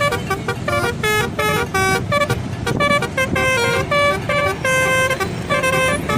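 Bus telolet horn playing a fast tune of short notes that jump up and down in pitch without a break, over a low rumble.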